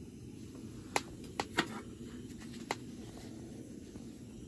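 Butane canister stove burning under a stainless steel pot with a steady low roar, broken by four sharp clicks in the first three seconds.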